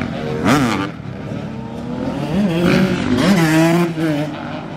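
Several supermoto motorcycle engines revving hard, the pitch climbing and dropping in repeated throttle bursts as the riders hold wheelies; one engine is held at high revs for about a second before cutting back, a little after four seconds in.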